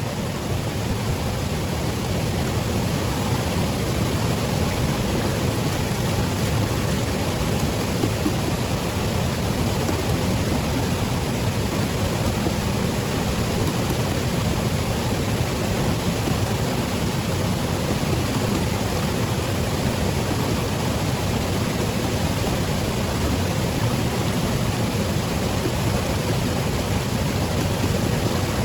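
Steady rushing water of a river or waterfall, an even loud wash without breaks.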